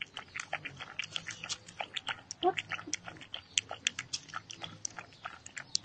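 Puppy lapping liquid from a shallow plastic lid: quick wet clicking laps, several a second, with a short squeak about two and a half seconds in.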